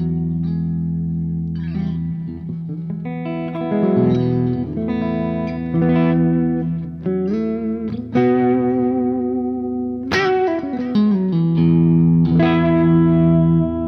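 Ibanez Universe UV7P seven-string electric guitar played through an amp on the split neck and middle pickup setting: ringing chords and single notes, with a pitch dive and return about ten seconds in.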